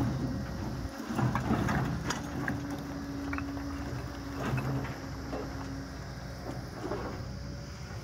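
Kobelco tracked excavator's diesel engine running steadily under load while its crusher bucket digs into broken rock, with stones knocking and scraping against the steel bucket every second or so.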